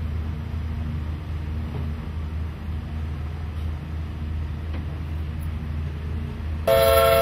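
Steady low rumble of ship machinery across the harbour, then near the end a loud ship's horn blast starts suddenly, several notes sounding together as one chord.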